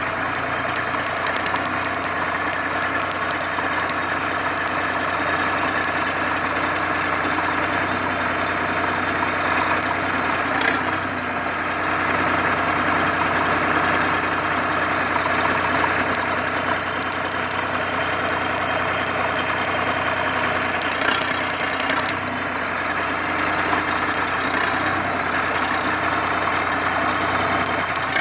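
Sonalika DI 35 tractor's diesel engine running steadily while it drives the front loader's hydraulics as the bucket is raised and lowered. The sound dips briefly twice.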